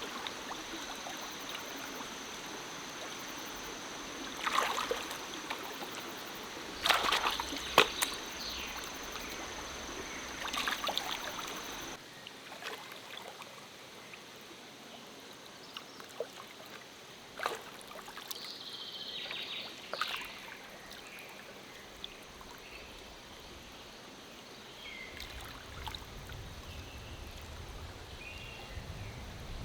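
Forest stream trickling steadily, with a few short splashes and sloshes in the water. The flow sounds quieter from about twelve seconds in.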